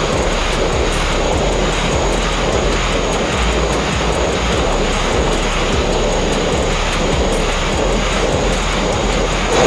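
Abrasive sandblaster nozzle blasting the steel hull of a narrow boat in one steady, unbroken hiss of air and grit, stripping two-pack epoxy coating. The blast pot is running low on media, so the blast has slowed.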